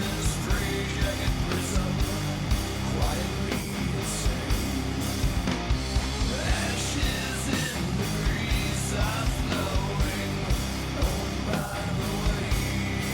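Loud rock music with distorted guitars, a fast, steady drum beat and vocals.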